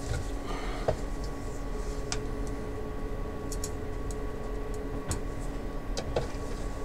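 A long screwdriver turning screws in the plastic back cover of a Dell E177FPb LCD monitor, giving a scatter of light, irregular clicks and a short scrape near the start, over a steady background hum.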